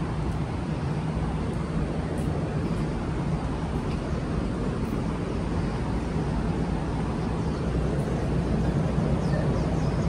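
Steady low hum and rumble of city background noise, with no single event standing out; it grows slightly louder toward the end.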